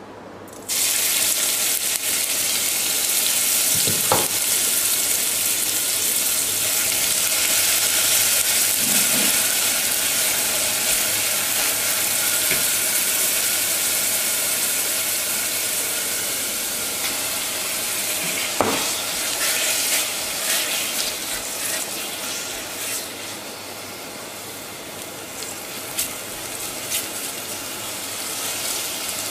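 Minced herbs and chili sizzling in hot coconut oil in a small stainless steel pot. The sizzle starts suddenly about a second in as the herbs go into the oil and eases slightly later on. A few sharp clicks of a utensil in the pot come near the end.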